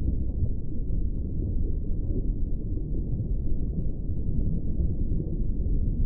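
Steady low underwater rumble of moving water, an even deep wash with no distinct events.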